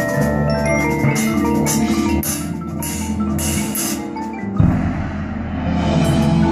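High school marching band playing its show music: held wind chords over front-ensemble mallet percussion such as marimba and bells, with several sharp crashes a couple of seconds in and a sudden loud low hit at about four and a half seconds.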